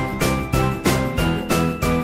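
Background music with a steady beat, about three beats a second, and bright chiming melody notes.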